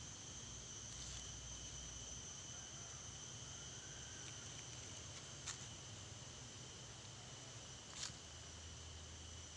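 Insects chirring steadily in a high pitch, with two short clicks about five and a half and eight seconds in.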